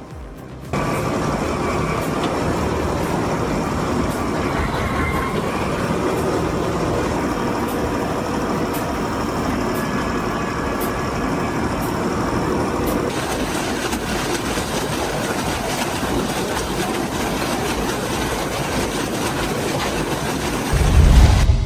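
Eschelbeck Biber 110 truck-mounted wood chipper running and chipping timber, a steady dense mechanical din. The sound changes character about 13 seconds in, and a heavy low thump comes near the end.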